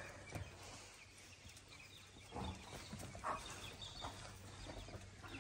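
Faint, scattered taps and scuffles of dogs moving about on a concrete floor, a handful of them after the middle.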